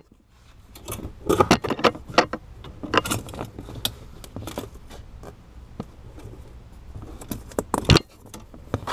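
Irregular metallic clicks, scrapes and rustles of a wire coat hanger and the fog-light wire being pulled through the firewall and across a rubber floor mat, with a sharp knock about eight seconds in.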